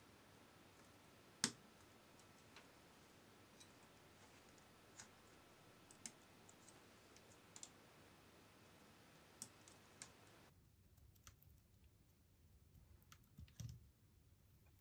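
Faint, scattered small clicks of flex-cable connectors and plastic parts being pressed into place by gloved fingers on the opened Nikon D90's circuit board, the sharpest one about a second and a half in. A soft low knock near the end.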